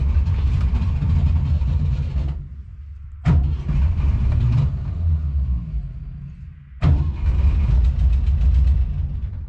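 Volkswagen Kombi engine being cranked by hotwiring, in three bursts of about three seconds each with short pauses between. It does not keep running.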